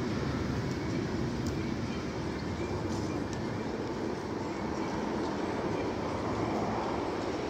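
Steady low rumble of vehicle noise with no single event standing out.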